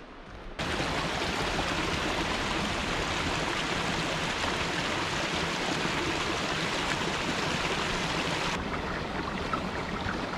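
Small mountain stream running over mossy rocks: a steady rush of water that starts abruptly about half a second in.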